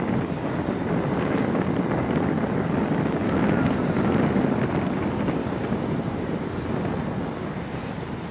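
Wind buffeting the microphone, a steady rough rushing noise, mixed with the low rumble of the harbour.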